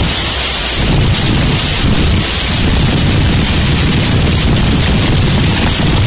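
Gorenoise harsh-noise track: a loud, unbroken wall of static-like noise with a heavy rumbling low end and hissing top. The low rumble drops out briefly near the start.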